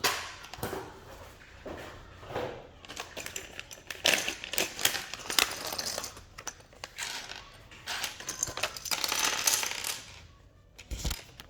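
Hard plastic keycaps clicking and clattering against one another as they are handled and sorted. It builds into a dense rattle for several seconds, then thins to a few separate clicks near the end.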